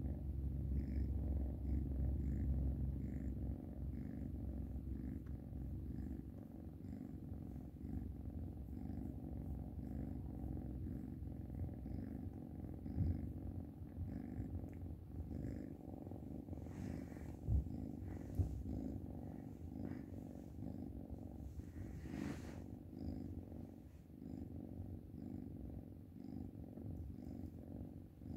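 Oriental kitten purring steadily while being stroked, a continuous low rumble with a faint even pulse. A few brief knocks come about halfway through.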